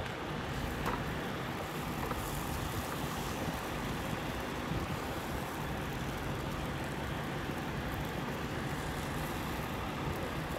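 Steady outdoor rumble of vehicle traffic and wind, with a few faint scrapes of a spatula stirring eggs in a cast iron pan.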